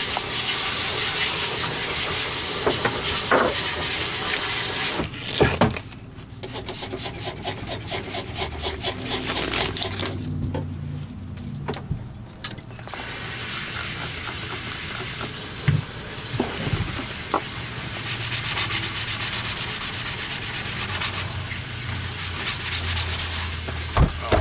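Scrubbing marks off a vacuum power head's housing. A steady rubbing hiss gives way, after a few knocks about five seconds in, to rapid back-and-forth strokes that pause briefly about halfway and then carry on.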